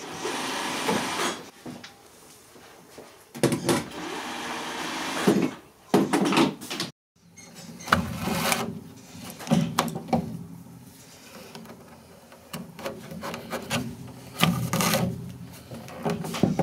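Jute upholstery webbing rubbing and scraping as it is stretched taut over a chair's coil-spring seat with a webbing stretcher, in several rough strokes. After a brief break about seven seconds in, twine rasps and snaps as it is pulled tight to tie the springs to the webbing.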